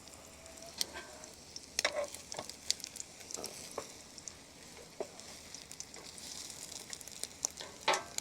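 Egg-soaked bread frying in oil inside a closed Ridgemonkey sandwich toaster on a camping stove: a soft sizzle with scattered crackles and pops.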